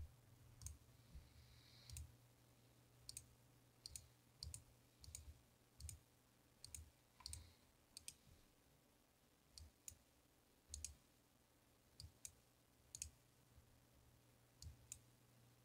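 Faint computer mouse clicks, about two dozen at irregular intervals, over a low steady hum of room tone.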